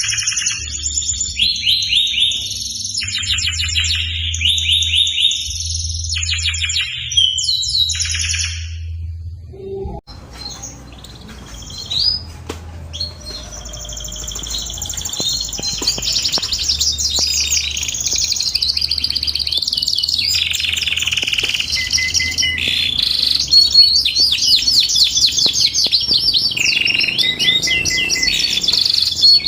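Domestic canary singing in rapid trills and rolling warbled phrases. There is a short break about ten seconds in, after which the song runs on almost without pause. A low steady hum sits underneath.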